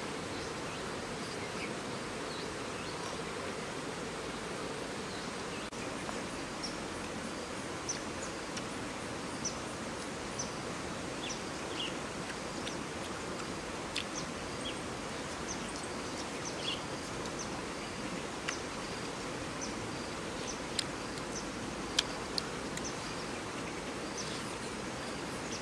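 Steady outdoor ambience of insects buzzing, with short high chirps scattered throughout and a few faint sharp clicks, the loudest near the end.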